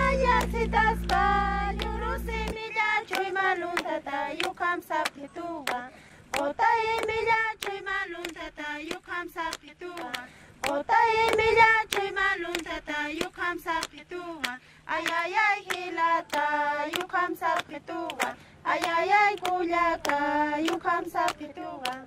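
A group of Uro women singing a song together in high voices, with regular hand claps keeping time.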